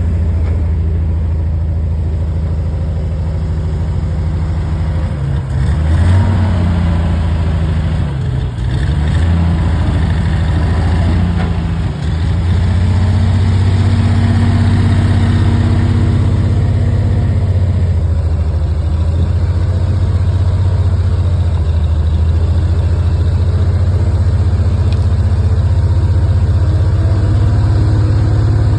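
Engine of heavy working equipment running steadily. Its pitch dips and wavers between about 5 and 12 seconds in, then rises and holds higher for a few seconds before settling back, as it is put under load or throttled.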